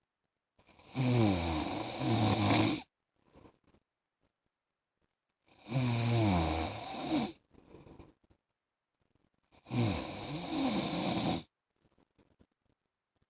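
A man snoring: three loud snores, each about two seconds long with a low, wavering pitch, coming about every four seconds, with faint breaths between them.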